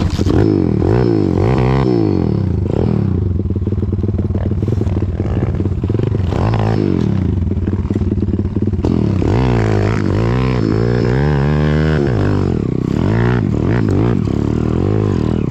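A 190cc pit bike engine revving up and down over and over, the throttle worked in repeated bursts. It cuts in suddenly and stays loud throughout.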